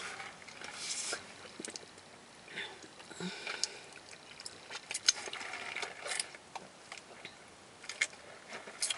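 A paper fast-food wrapper crinkling and rustling as it is handled, in scattered short crackles.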